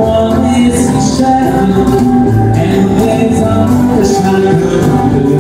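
Live country-western song: a man singing while strumming a steel-string acoustic guitar.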